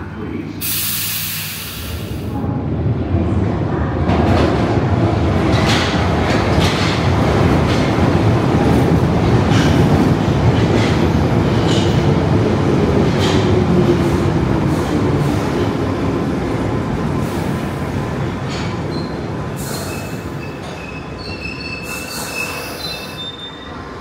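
London Underground tube train running: wheel and track rumble builds over a few seconds, holds, then slowly eases, with a falling whine through the middle. There is a short hiss about a second in, and brief high wheel squeals near the end.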